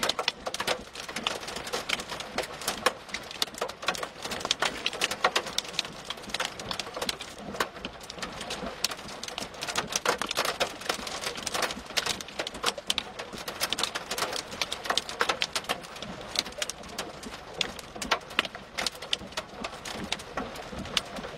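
Heavy rain pelting down, a dense, steady patter of sharp drop hits close to the microphone.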